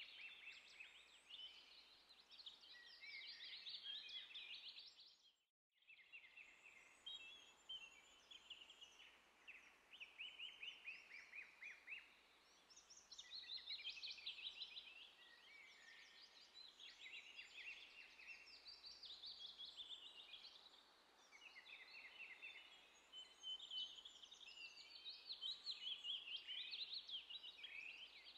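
Faint bird chorus: several birds singing quick trills and twittering phrases one after another, with a brief gap about five and a half seconds in.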